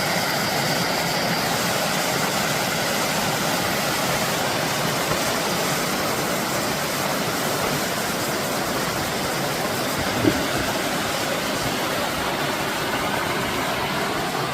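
Steady rush of a mountain stream's water tumbling over rocks into a pool, with one brief knock about ten seconds in.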